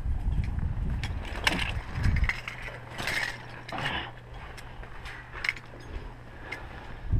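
Metal climbing gear clinking against a steel tower: a scattered run of short, sharp clicks and clanks. A low rumble sits under the first two seconds, then a steady low hum.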